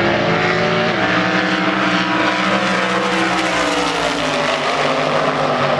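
Two drag-racing hot rods launching and running down the strip at full throttle, their engine notes stepping down in pitch as they pull away.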